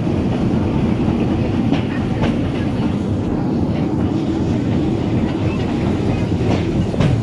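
Narrow-gauge park railway train running, heard from an open carriage: a steady low rumble of wheels on rail, with a pair of sharp clicks about two seconds in and another pair near the end.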